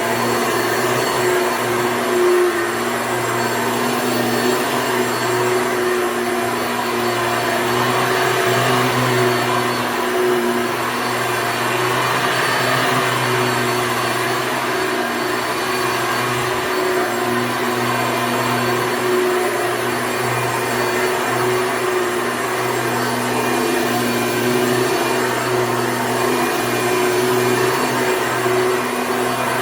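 1993 Hoover Elite upright vacuum cleaner running steadily, its motor humming at an even pitch.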